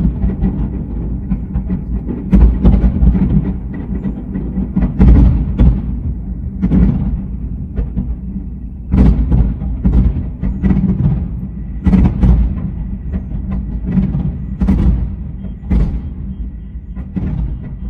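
Aerial fireworks shells bursting in a steady barrage, a deep boom every second or two with smaller pops between, played back at double speed.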